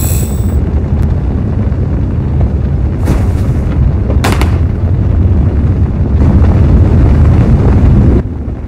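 Rocket-thruster sound effect for the sky-crane descent stage: a loud, deep, continuous rumble. Short hissing blasts come about three and four seconds in, and the rumble grows louder for the last two seconds before cutting off sharply near the end.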